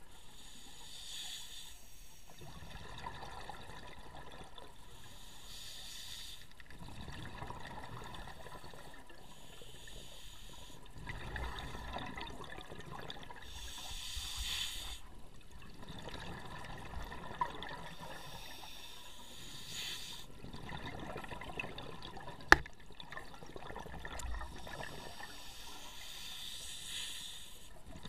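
Scuba diver's breathing heard underwater: a short regulator hiss roughly every four to six seconds, alternating with longer stretches of bubbling exhaust. About three-quarters of the way through comes a single sharp knock, the loudest sound here.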